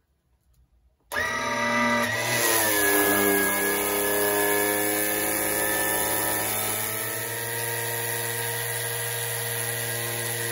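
Cheap 12-volt electric oil suction pump switching on about a second in and running steadily, drawing the warm engine oil out through a tube into a bottle. Its pitch sags a little in the first second or two as it takes up the load.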